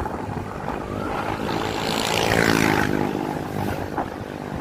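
Motorcycle engine running on the move, with steady road and wind noise; about a second and a half in, an engine tone climbs in pitch, then fades out about three seconds in.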